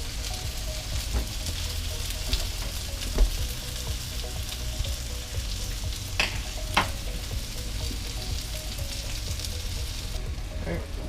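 Chicken tenderloins sizzling and crackling in oil in a skillet that has just been moved off the heat, with the burner turned off. Two sharp clicks come about six seconds in.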